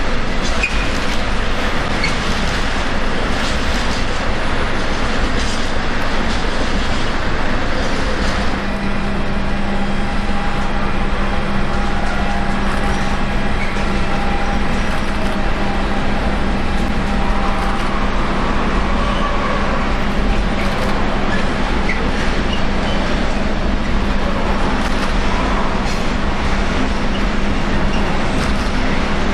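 Train on the station tracks: a steady, dense rumble with no breaks, joined about eight seconds in by a low steady hum.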